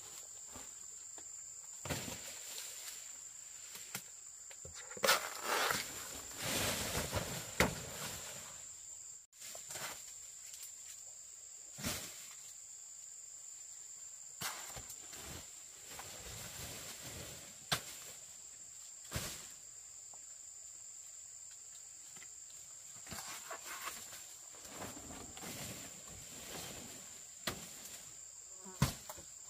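A steady high-pitched insect drone, with rustling through leafy undergrowth, footsteps and scattered sharp snaps and clicks as thick green plant stalks are cut and handled.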